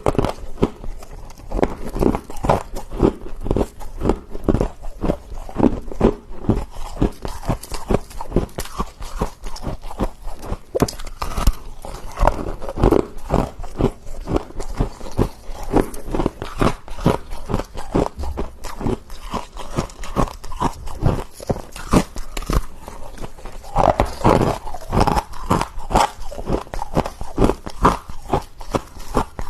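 Freezer frost being bitten and chewed: dense, irregular crunching close to the microphone.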